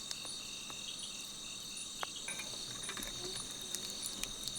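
Night insects, crickets, trilling steadily at several high pitches at once, one of them in short repeated chirps. A few faint light clicks and taps sound over them.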